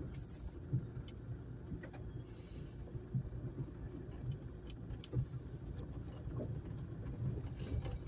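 Car driving on a rough dirt mountain track, heard from inside the cabin: a low steady rumble of engine and tyres, broken by irregular knocks and rattles as it goes over the bumps.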